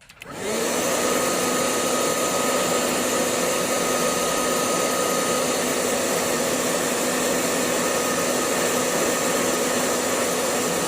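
Hair dryer switched on about half a second in and running steadily, a rush of air with a faint steady hum, drying wet ink and colour on a painting; it switches off at the end.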